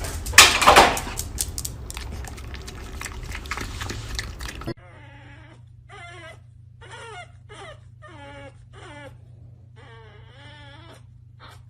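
Loud, even noise with a sharp burst about half a second in, then an abrupt cut to a dog giving a series of short, wavering whines and yowls.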